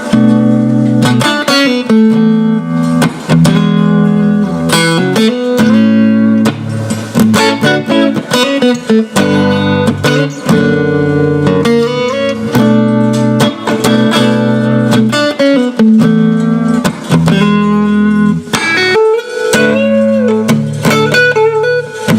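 Electric guitar played through a Fender Princeton '68 reissue combo amp's 10-inch speaker, as an amp tone demonstration: phrases of ringing chords and single notes, with short breaks between phrases.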